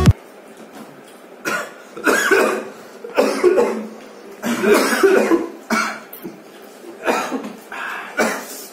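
A person coughing hard again and again in short, irregular bursts, from the burn of golgappa water spiked with red chili.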